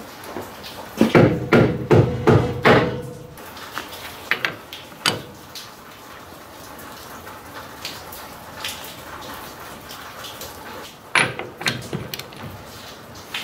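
Sharp metal knocks with a short ringing tone: a quick run of about six in two seconds, then a single knock, then a short cluster near the end. Hand tools clank against the Ford 8.8 rear axle's pinion flange and nut while the pinion nut is worked with a torque wrench, a ratchet and a holding bar.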